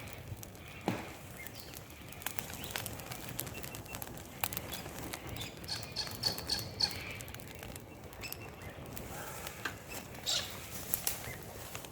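Campfire crackling: burning wood giving off irregular sharp snaps and pops over a low hiss. A brief thin high tone sounds about six seconds in.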